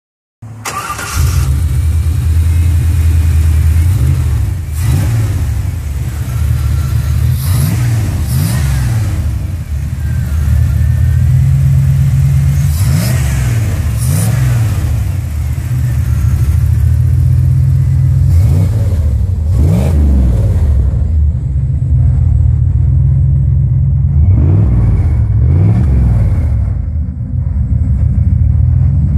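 Corvette V8 in a Chevy pickup running loud, with a steady low idle rumble, revved in short blips again and again, a dozen or so times.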